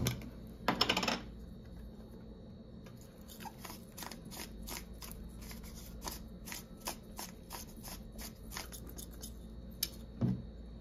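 Hand-twisted spice grinder grinding seasoning over a plate: a crunchy rattle about a second in, then a run of short ratcheting clicks, about two to three a second.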